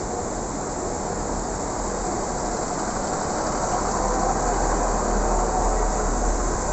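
Northern Class 155 diesel multiple unit moving slowly along the platform, its underfloor diesel engines running steadily, growing a little louder toward the end.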